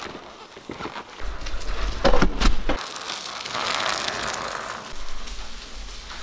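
A steel two-wheeled cart on solid, non-inflatable tyres rolling along loaded with gravel, its body and load rattling and clattering. There are a few sharper knocks about two seconds in, then a denser rattle.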